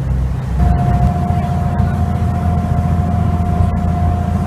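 Passenger boat's engine running steadily at cruising speed, a deep rumble heard from on board, with a thin steady whine coming in about half a second in.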